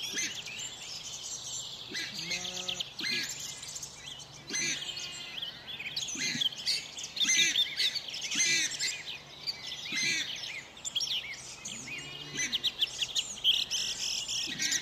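Several birds chirping and calling together, a dense, continuous mix of short rising and falling notes.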